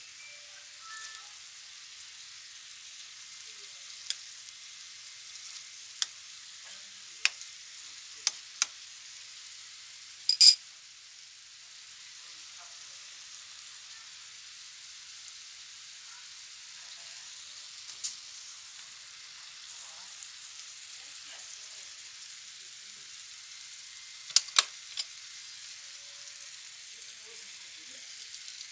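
Chicken pieces sizzling steadily in oil in a nonstick frying pan, with a metal spoon stirring and sharp knocks now and then, the loudest about ten seconds in, as chopped carrots and potatoes are added to the pan.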